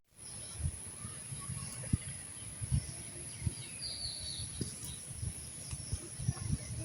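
Rural outdoor ambience: a bird chirps briefly about four seconds in, over irregular low thumps and a steady high-pitched whine.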